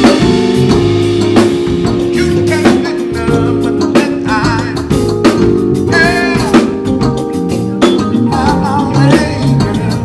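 A live band playing: drum kit keeping a beat, electric bass and keyboard holding the groove. A sung vocal line bends up and down in a few places.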